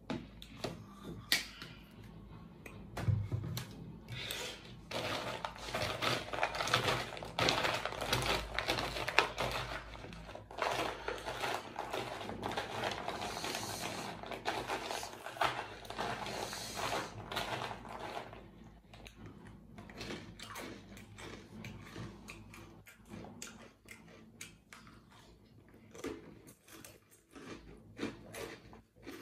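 A hand mixing dry, crunchy galeta (oven-dried bread rusk pieces) with ketchup in a plastic tub, giving a dense crackling and clicking. It is busiest through the middle and thins to scattered clicks toward the end.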